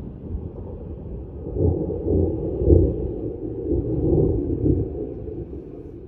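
Blizzard wind gusting and buffeting the microphone as a low, uneven rumble, swelling in several strong gusts through the middle and easing near the end.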